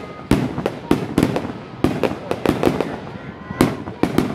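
Fireworks display: aerial shells bursting one after another in quick, irregular succession, about a dozen sharp bangs, roughly three a second.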